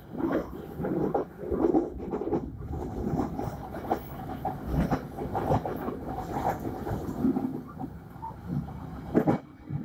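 Fajar Utama Yogyakarta passenger train running along the track, heard from inside its rear vestibule: a steady rumble of wheels on rail with frequent irregular knocks and rattles from the coach.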